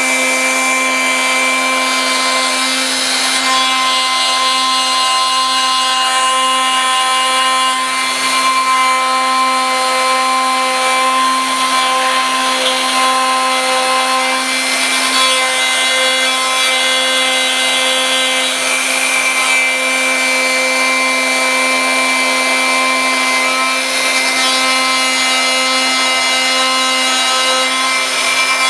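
CNC router spindle milling an aluminium block with an end mill: a steady whine of several fixed tones over the constant hiss and rasp of the cut.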